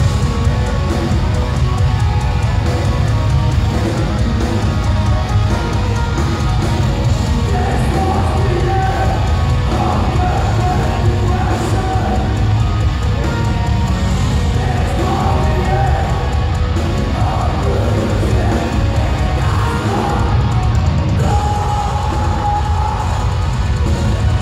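Live post-black metal band playing: distorted electric guitars, bass and drums at full volume, heard from the crowd with a heavy, bass-dominated sound.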